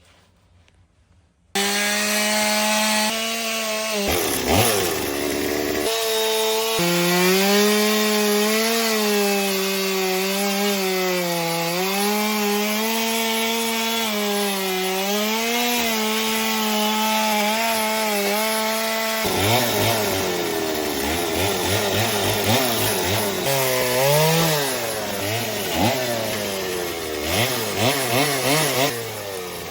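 Two-stroke chainsaw cutting into wood. It starts suddenly about a second and a half in with a high, steady engine note whose pitch wavers as the chain bites. After about nineteen seconds the pitch drops to a lower, rapidly swinging note.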